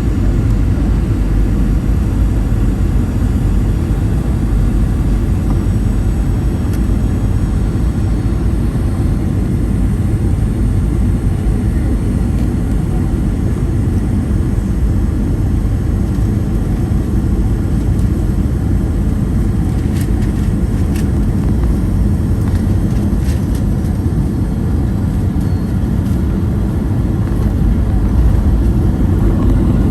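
Boeing 737-800 cabin noise from a window seat: a steady, loud rumble of the CFM56 jet engines and rushing air, with a few faint clicks and a slight swell in level near the end.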